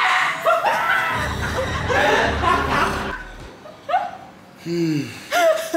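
Young women laughing and giggling in loud, high-pitched bursts, with a low rumble under the laughter for a couple of seconds and a lower voice briefly near the end.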